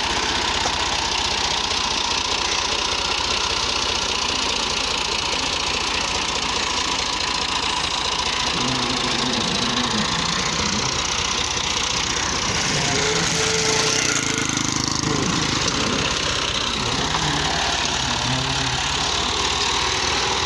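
Farm tractor's diesel engine running steadily at low speed while it tows a heavily loaded trailer of sand, with a fast low knocking beat.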